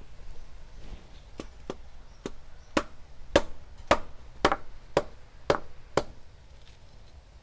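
Nipa palm fruit being chopped: a run of about ten sharp chops at roughly two a second, loudest in the middle.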